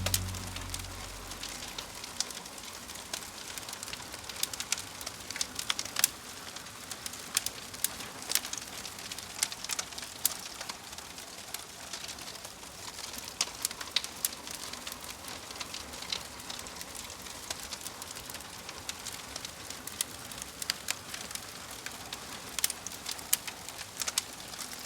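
Campfire crackling: a soft steady hiss of burning wood with frequent irregular pops and snaps, a few of them louder.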